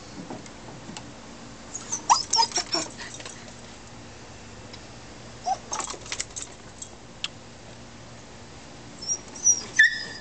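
Pet dog whining and yipping in short bursts, three times, wanting a toy; the last bout near the end is a high, drawn-out whine.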